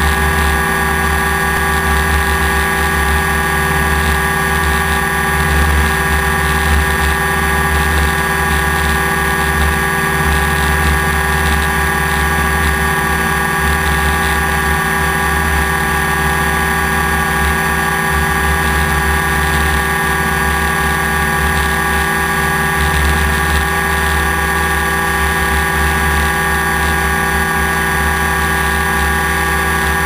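Multirotor drone's electric motors and propellers whirring steadily, heard from the drone's own onboard camera as a blend of several steady high pitched tones. A low wind rumble on the microphone rises and falls underneath.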